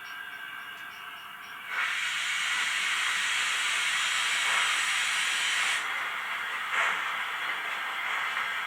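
Steam hiss from a model steam locomotive's Piko XP5.1 sound decoder: it starts suddenly about two seconds in, runs loud and even for about four seconds, then drops to a lower hiss with one short puff later on.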